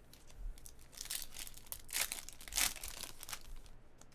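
Trading-card pack wrapper being torn open and crinkled by hand: several short crinkly rips, the loudest a little past halfway.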